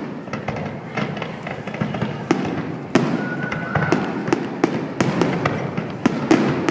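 Fireworks display: many sharp bangs and crackles in quick, irregular succession. A short, high, steady whistle-like tone comes about three seconds in.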